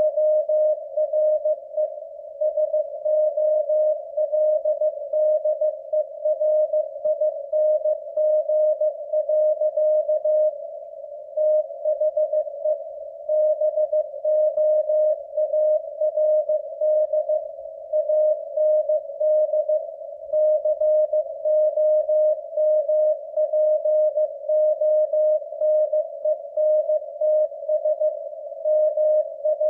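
Morse code sent at 15 words per minute: a single steady tone keyed on and off in quick dots and dashes, with short pauses between words and a faint hiss behind the tone.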